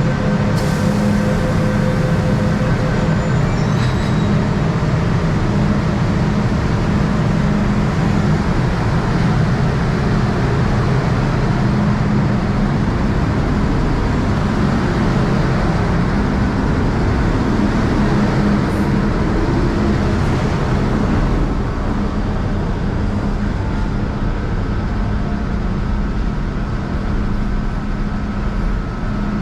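MTR M-Train electric multiple unit making a steady low hum and rumble, with a few faint steady tones over it; the noise drops a step about 21 seconds in.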